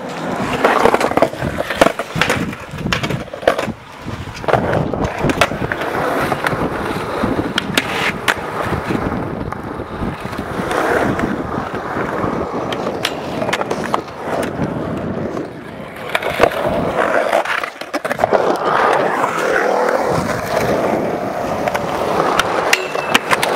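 Skateboard wheels rolling over concrete, with many sharp clacks and knocks of the board hitting the ground.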